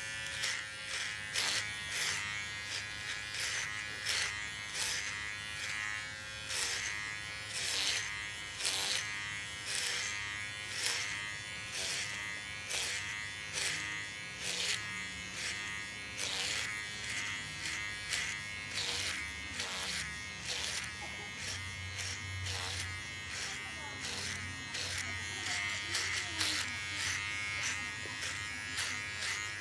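Electric hair clippers running with a steady buzz while cutting hair, with short rasping strokes about once or twice a second.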